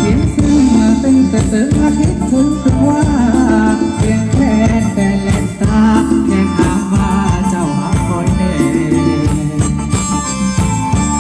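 Live band playing Thai ramwong folk dance music, a melody carried over a steady percussion beat.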